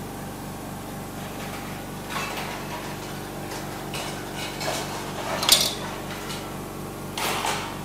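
Metal kitchenware clinking and scraping a handful of times, the sharpest clink about five and a half seconds in, over a steady low hum.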